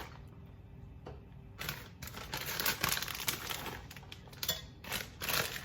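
Shredded mozzarella being added to a bowl of pasta: several short bursts of rustling and light clatter.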